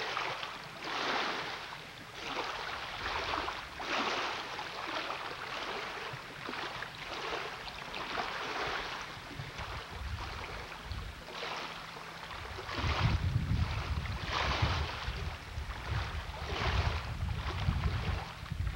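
Small waves lapping against the shore, a wash of splashing that comes and goes about once a second. About two-thirds of the way through, a loud buffeting rumble of wind on the microphone joins in.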